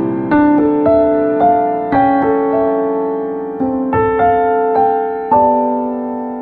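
Background piano music: a slow, gentle melody of chords and single notes, each note struck and left to fade.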